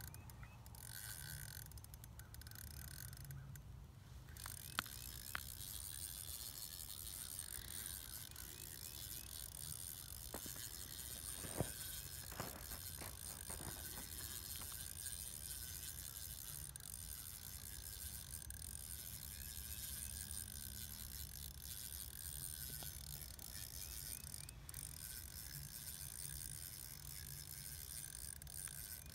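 Quiet, steady low background rumble with a few faint clicks from an ice-fishing reel being worked while a fish is played on the line.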